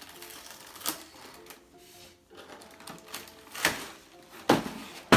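Cardboard LEGO set box being handled and its end flap pried open on a table: a few sharp clicks and knocks, the loudest in the second half.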